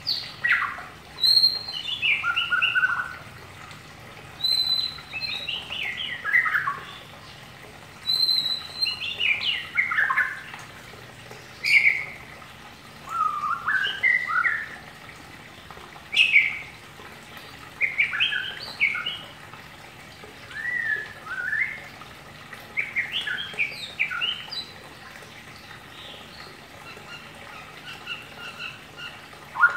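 Caged white-rumped shama singing in a soft, varied warble that keepers call 'ngeriwik'. It gives short phrases of whistled glides and chattering notes every couple of seconds with brief pauses between them, growing fainter near the end.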